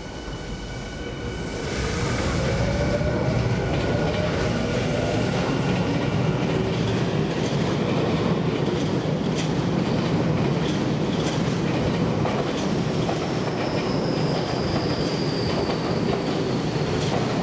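Yokohama Minatomirai Railway Y500-series electric train pulling out and accelerating past close by. Its traction motors whine, rising in pitch over the first few seconds, under a loud steady rush of wheels on rail with scattered clicks over the joints. A faint high tone slides down near the end.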